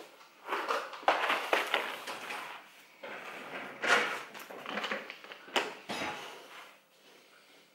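Plastic supplement bottles knocking and clattering in a plastic basket and against a kitchen benchtop as they are lifted out and set down one by one, in a run of irregular knocks that goes quiet near the end.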